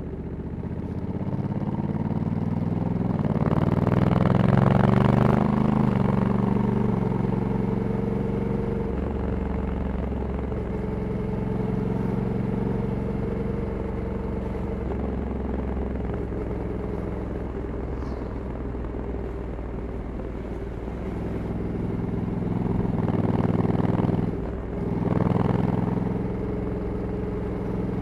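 Honda Africa Twin 1100 DCT's parallel-twin engine with its stock exhaust, under way: the engine note rises over the first five seconds, steps down as the dual-clutch gearbox shifts up, then runs steady at cruise. Near the end it rises again and breaks briefly for another upshift before settling.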